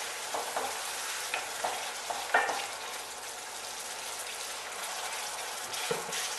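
Spice paste frying in mustard oil in a stainless steel pan, with a steady sizzle, while a wooden spatula stirs and scrapes it, giving a few short taps in the first half. This is the masala being cooked down until the oil separates.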